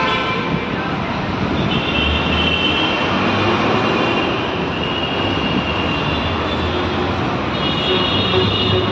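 Steady noise of city road traffic, a continuous roar of passing vehicles with faint high tones that come and go.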